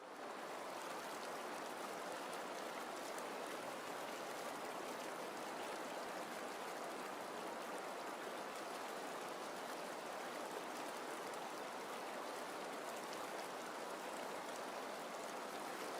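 Running water, a steady even rush like a flowing stream, fading in at the very start.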